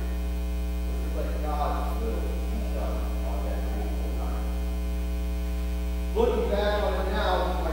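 Steady electrical hum, a low buzz with a ladder of overtones, with a man's voice speaking faintly through it. The voice comes up louder about six seconds in.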